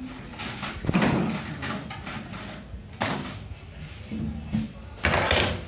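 Three short scraping, rustling noises about two seconds apart, with faint voices in the background.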